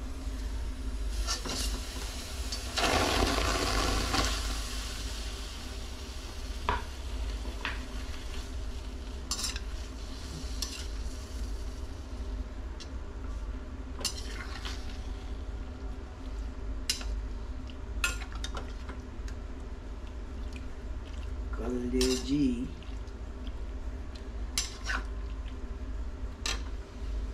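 A cooking utensil stirring and clinking against a pot of goat liver, with sharp clinks every few seconds over a steady low hum. A brief rush of noise comes about three seconds in.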